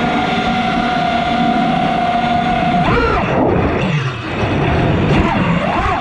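Brushless motors and props of a 6S FPV freestyle quadcopter (Armattan Marmotte on T-Motor F60 Pro II 1750Kv motors) whining at a steady pitch over rushing prop wash. About three seconds in the pitch jumps up and then falls away as the throttle is chopped, and it climbs again near the end as the throttle is punched.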